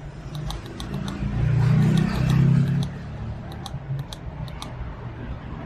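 Small buttons on handheld signal meters clicking in quick, irregular runs as a channel is keyed in. A low rumble swells for a second or so around the middle.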